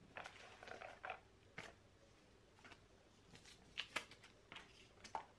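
Faint rustling of paper packaging inserts being handled, then a few light clicks and taps, the sharpest about four seconds in.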